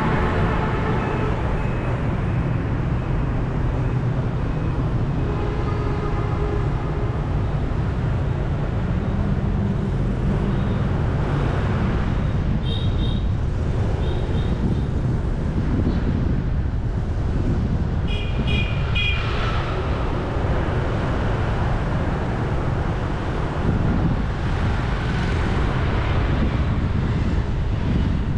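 City street traffic, mostly motorbikes, heard from a vehicle moving through it: a steady low rumble with engines passing. Short high beeps sound twice, once about 13 seconds in and again about 19 seconds in.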